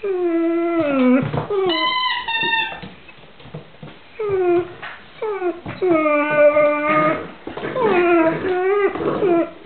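Bernese mountain dog puppy whining and howling in a series of drawn-out, wavering cries with short pauses between them. Several cries fall in pitch at the end, and one about two seconds in is higher than the rest.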